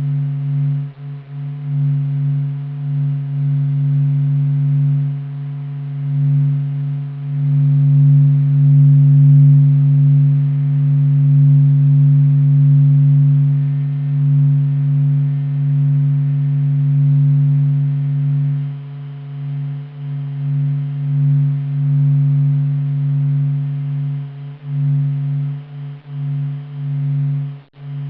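NASA sonification of the Sun's vibrations: a steady low hum with several held tones, its loudness slowly swelling and dipping, wavering more in the second half.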